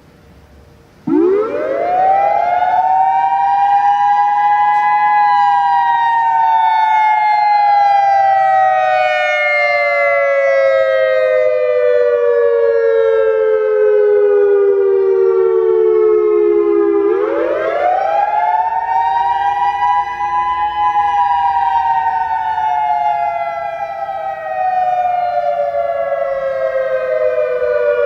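Federal Signal EOWS 612 electronic outdoor warning siren sounding, starting suddenly about a second in. Its pitch sweeps up quickly over a few seconds, then falls slowly for about twelve seconds, and the slow rise-and-fall cycle starts again near the middle.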